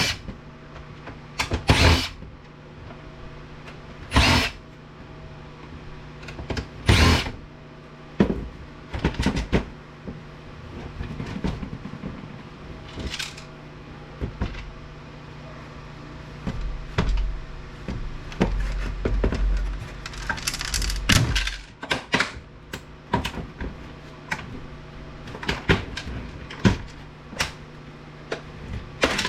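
Work on an APC UPS unit being taken apart for scrap: scattered sharp knocks and clatter of tools and metal and plastic parts as screws are pulled out, over a steady low hum. A low rumble comes in about two thirds of the way through.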